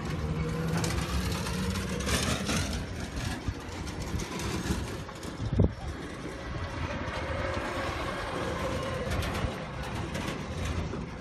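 Vehicle engine running with street traffic noise, a low steady hum early on, and one sharp knock about halfway through.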